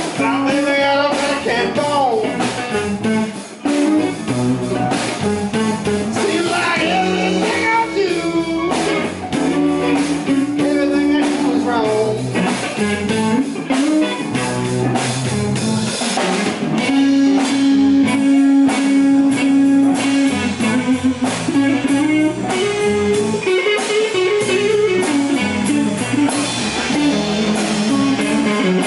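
Live blues band: a Stratocaster-style electric guitar plays a lead solo of held, bending notes over drum kit and bass guitar.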